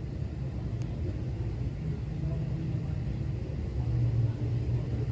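Steady low rumble of a running motor, swelling a little about four seconds in.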